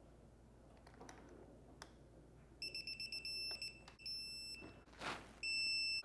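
Digital torque wrench beeping as a front axle pinch bolt reaches its set torque of 13 foot-pounds: a quick run of short, high beeps, then longer beeps, the last one held. A brief rustle or knock comes just before the last beep.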